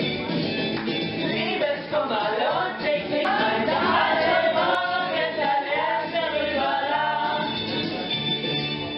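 A group of people singing together, several voices at once.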